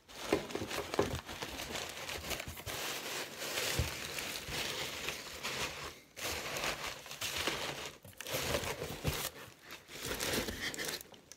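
Crumpled brown packing paper crinkling and rustling as it is pulled out of a cardboard box, with two short breaks about six and eight seconds in.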